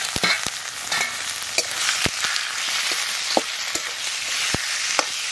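Diced raw chicken sizzling steadily in hot mustard oil in a metal karai, with several sharp knocks and scrapes of the metal spatula against the pan as the meat is stirred into the spice paste.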